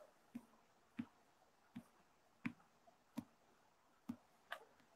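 About seven sharp clicks and taps at irregular intervals, each brief, against near silence.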